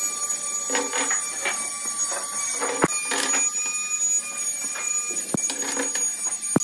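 Small cut wooden triangle blocks being dropped one after another onto a wooden workbench, landing as a series of irregular hollow knocks and clatters. A steady high whine runs underneath.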